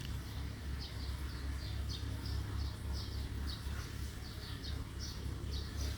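A small bird chirping over and over, short falling chirps about twice a second, over a steady low hum.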